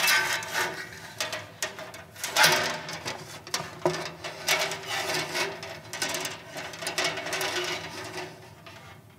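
Long black rulers sliding, scraping and knocking against one another and against the tops of metal music stands as they are fitted into a crossed frame: a run of irregular scrapes and clicks that thins out near the end.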